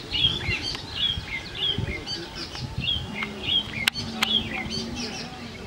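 Small birds chirping over and over, several short high calls a second, with a faint low hum in the middle and two sharp clicks about four seconds in.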